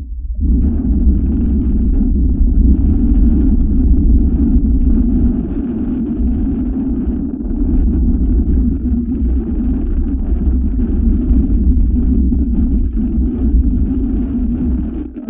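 Wind rumbling and buffeting on a phone's built-in microphone on a moving motorcycle, over the steady running of the motorcycle's engine.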